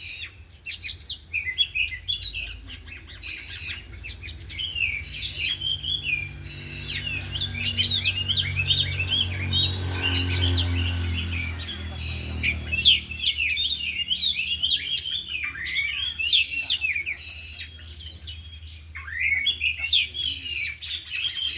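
Several Oriental magpie-robins (kacer) singing at once, a continuous stream of varied whistles, chirps and trills that includes mimicked calls. A low droning hum swells in the middle and fades again.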